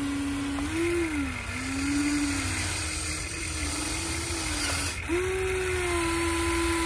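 Huina 1593 RC excavator's electric motors whining as the boom and arm lower the bucket. The whine's pitch rises and dips several times, breaks off briefly about five seconds in, and comes back a little higher.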